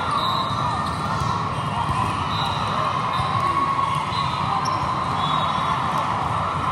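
Steady din of a big hall with many volleyball courts in play: balls being hit and bouncing, crowd voices blending together, and short high squeaks scattered through.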